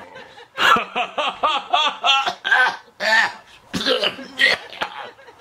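Someone laughing off-camera in quick, rhythmic ha-ha pulses, which about halfway through break into rougher coughs and gasps.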